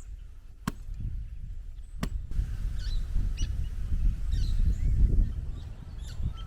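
A low, uneven rumble outdoors, with two sharp knocks in the first two seconds and short high bird chirps through the second half.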